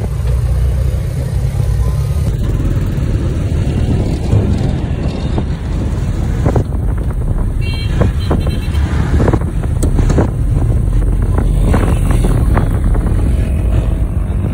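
Busy road traffic: a steady rumble of cars, motorcycles and buses passing.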